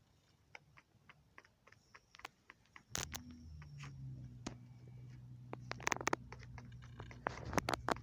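Chickens pecking at feed: irregular sharp taps of beaks, sparse at first and busier in the second half. A low steady hum comes in about three seconds in.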